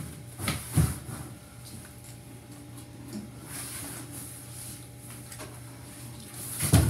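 Packaging being handled while a keyboard is unboxed: two soft knocks a little under a second in, faint scraping and rustling, and a louder knock near the end.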